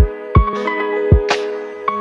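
Background music with a steady beat under sustained melodic notes.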